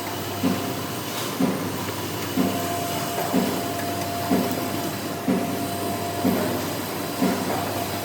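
Factory machinery running steadily with a low hum and a regular short pulse about once a second.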